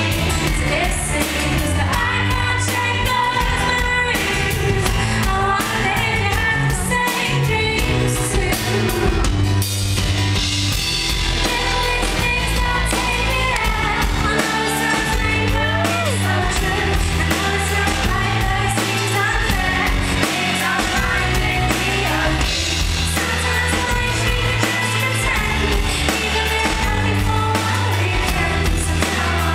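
Live pop band playing with a woman singing lead over drums and a steady bass line, recorded loud from the front of a concert crowd.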